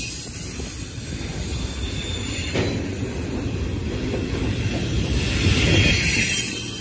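Double-stack container well cars of a CSX intermodal freight train rolling past close by, their steel wheels rumbling steadily on the rails. There is a single sharp clank about two and a half seconds in, and a high hiss from the wheels swells near the end.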